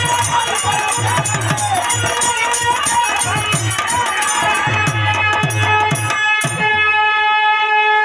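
Instrumental interlude of birha folk music: a rhythmic drum beat with jingling rattles over steady held notes. The percussion stops about six and a half seconds in, leaving the held chord ringing on.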